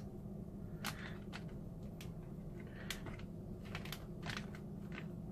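Irregular light clicks and taps as cut carrot pieces are picked up off a wooden table and dropped into zip-lock plastic bags, over a steady low hum.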